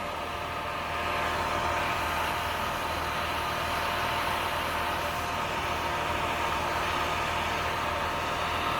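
Grain dryer running with corn moving through it: a steady mechanical drone of fan and augers with constant tones in it, a little louder after about a second.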